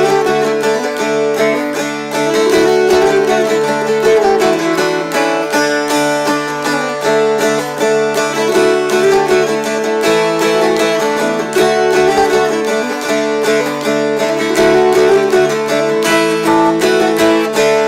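Two mountain dulcimers strummed together in a duet: even, continuous strumming of a melody over a steady drone.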